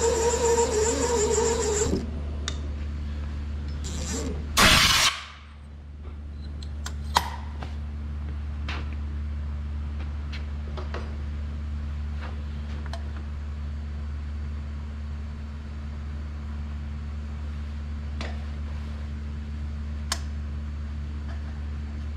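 Valve seat cutter squealing for about two seconds as it finishes cutting a seat in a 12-valve Cummins cylinder head. A loud short burst of noise follows about four and a half seconds in. After that a steady low machine hum runs on, with a few faint clicks.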